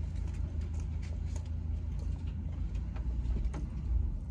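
Close-up chewing with small wet mouth and food-handling clicks over a steady low rumble of a car cabin, a slightly louder bite or bump near the end.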